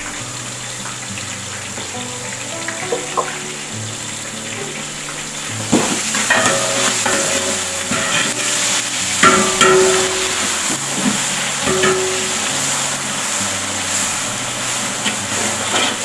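Ground ginger, garlic and green chilli paste frying in hot oil with browned onions in a large metal pot. The sizzle grows louder about six seconds in as a metal ladle stirs it, with scrapes and clinks of the ladle against the pot. Background music plays underneath.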